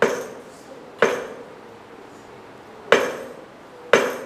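Loaded 100 kg barbell striking the steel frame of a seal-row bench at the top of each rep: sharp metallic clanks with a short ring. Four strikes: at the start, about a second in, then two more about three and four seconds in, after a longer pause.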